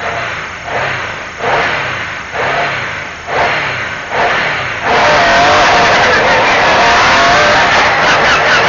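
MG Metro 6R4 Group B rally car's V6 engine revving hard. For about five seconds it rises and falls in short pulses, then suddenly gets louder and holds at high revs.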